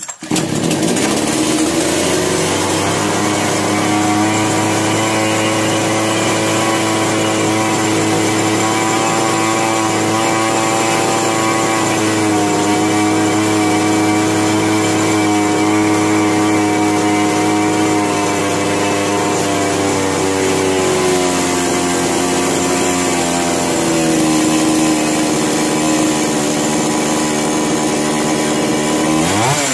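Two-stroke engine of a Kisan Kraft KKC SP6522 chainsaw running steadily while its carburettor screws are turned, its pitch stepping down a little a few times and rising in a rev right at the end. Even with this carburettor tuning it starts and then stalls when the throttle is opened, which the mechanic suspects points to a faulty spark plug.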